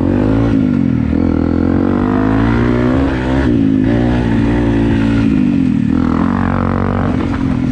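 Single-cylinder Honda motorcycle engine revving under hard acceleration. Its pitch rises and falls several times as the rider works the throttle through the gears.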